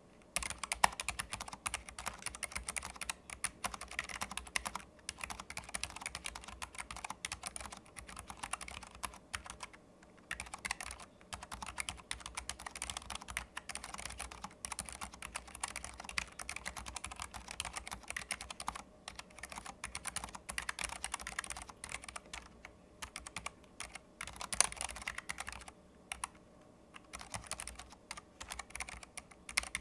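Continuous typing on a Keychron low-profile keyboard with optical switches: an irregular run of key clicks and clacks with a few brief pauses and several louder key strikes.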